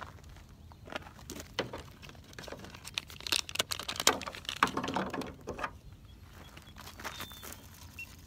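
Irregular clicks and crinkling from hands handling fishing tackle while a rod is rigged, busiest through the middle stretch and thinning out near the end.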